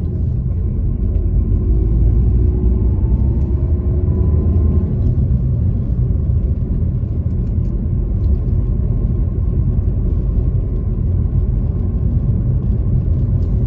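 Car engine and tyre-on-road rumble heard from inside the cabin as the car pulls away. The engine note rises over the first few seconds, then settles into steady driving noise.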